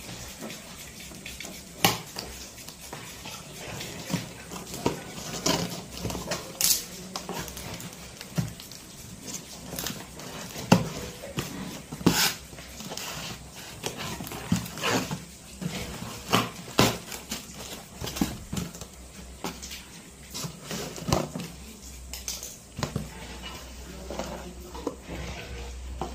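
Scissors scraping and snipping through the packing tape on a cardboard parcel, in irregular sharp clicks, taps and scrapes. Near the end the cardboard flaps and bubble wrap rustle as the box is opened.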